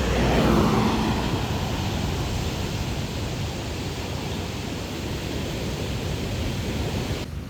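A vehicle passing close by on the highway: the tyre and engine noise swells about half a second in, drops in pitch as it goes by, then fades into a steady rush of wind and surf.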